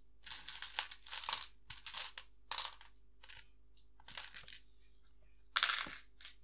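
Small plastic Lego Technic pieces rummaged through and sorted by hand in a plastic tub: an irregular series of short rustling, clattering bursts, loudest about five and a half seconds in.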